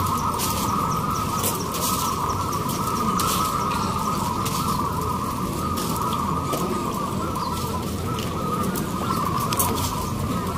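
Many caged zebra doves (perkutut) cooing at once, their overlapping calls merging into a steady chorus, with scattered short clicks over it.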